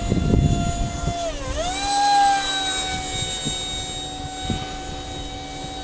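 Electric ducted fan of a Kyosho Tornado EDF-55 model jet whining steadily. About a second and a half in, its pitch dips and then climbs back higher and louder before settling, with some low thumps in the first second.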